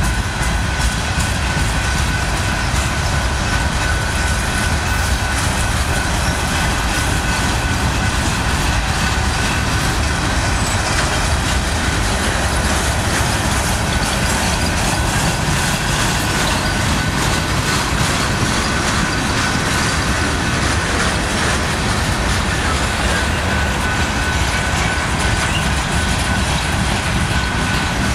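BNSF mixed freight train's cars (boxcars, a tank car, hopper cars) rolling steadily past, with a loud rumble of steel wheels on rail and wheels clacking over the rail joints. A steady high-pitched wheel squeal runs underneath.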